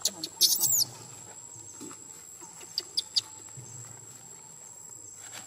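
A very high-pitched animal squeal with a falling pitch, lasting about half a second, then three short high chirps about two seconds later. A steady high insect whine runs underneath.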